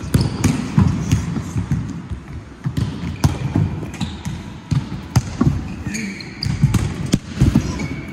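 Repeated thuds and smacks of futsal balls being kicked and striking the goalkeeper and the wooden hall floor, mixed with the goalkeeper's body thumping down and sliding on the floor. Short shoe squeaks come near the end.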